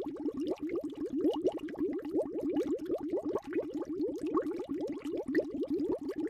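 Underwater bubbling sound effect: a fast, continuous stream of small bubbles, each a short rising blip, many to the second.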